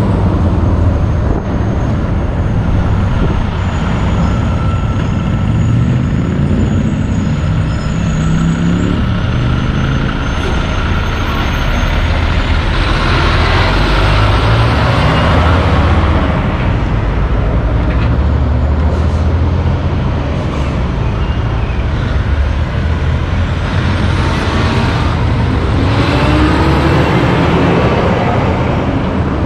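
Loaded logging trucks driving past close by, their diesel engines rising in pitch as they pull away. A loud rush of tyre noise swells as one passes, about halfway through.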